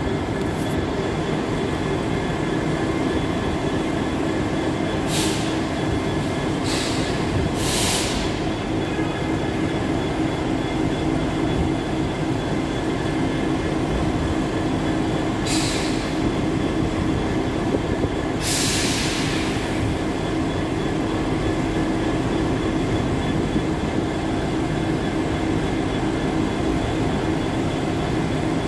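Class 66 diesel locomotive's two-stroke V12 EMD engine running steadily as it pulls a freight train slowly past, a continuous drone with a steady hum. Several short hisses cut through, the longest about two thirds of the way in.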